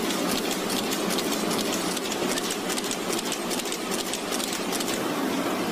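Banknote printing and sheet-handling machinery running, a steady mechanical noise with rapid clicking that stops about five seconds in.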